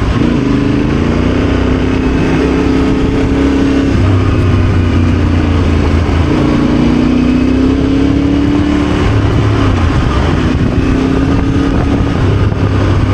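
Yamaha Ténéré adventure motorcycle engine under way, its revs climbing and dropping a few times as it rides.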